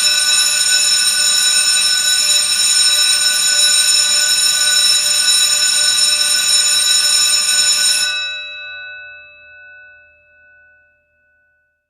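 Emergency alarm bell ringing continuously and loudly for about eight seconds. It then stops suddenly and its tone dies away over the next few seconds.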